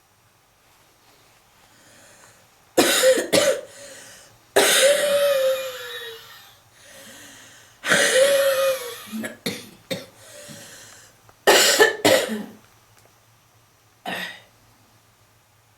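A smoker's heavy coughing fit: loud bouts of harsh coughs every few seconds, some with a hoarse voiced tone that falls in pitch, with quieter breathing between them and one short cough near the end.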